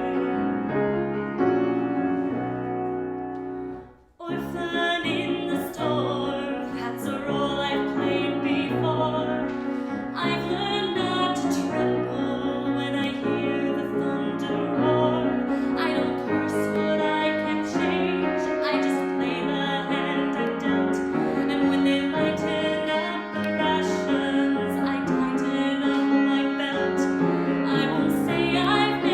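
A woman singing a musical-theatre ballad to piano accompaniment, the sound breaking off for a moment about four seconds in before the song goes on.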